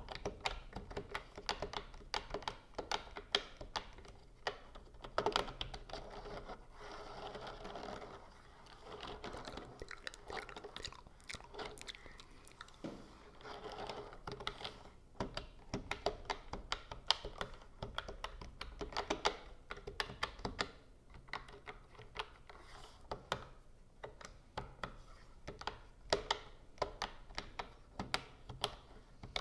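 Keyboard keys being typed on: a steady, irregular stream of quick clicks and taps, with brief stretches of denser rustling in between.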